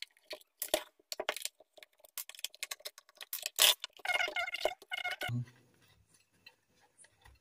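Irregular sharp clicks and small metallic clinks of a screwdriver on the back-panel screws of a speaker cabinet as it is unscrewed and handled, with a couple of brief squeaky sounds about four seconds in.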